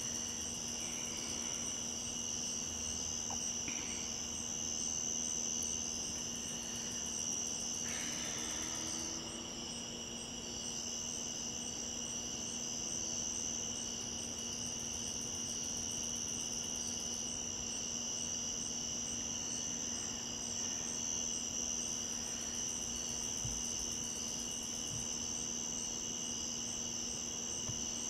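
A chorus of crickets trilling steadily on a summer night, a continuous high-pitched sound that never breaks, with a faint steady low hum beneath it.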